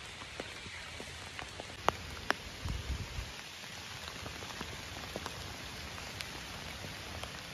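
Steady rain falling through the woods, an even hiss broken by sharp taps of single drops, the two loudest about two seconds in, with a short low rumble soon after.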